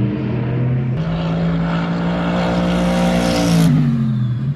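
Race car passing close at speed: its engine note climbs and grows louder, is loudest about three and a half seconds in, then drops away sharply with a falling pitch as it goes by. A second car's engine runs steadily underneath.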